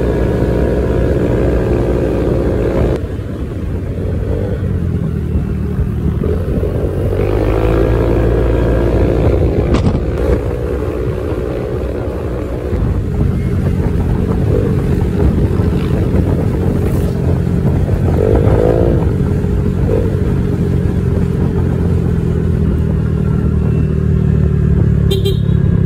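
Honda PCX 150 scooter's single-cylinder engine running while riding, under heavy low wind and road rumble. The engine pitch rises and falls about seven seconds in and again near eighteen seconds.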